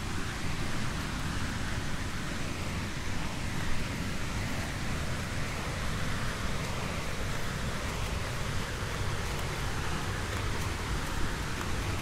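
Steady outdoor noise with wind buffeting the microphone: an irregular low rumble under an even rushing hiss.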